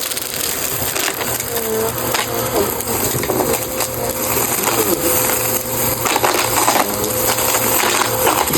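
Bissell CleanView Rewind upright vacuum running steadily over a rug, crunching and rattling as it sucks up coins, beads and fluff, with frequent sharp clicks of debris hitting the inside of the machine.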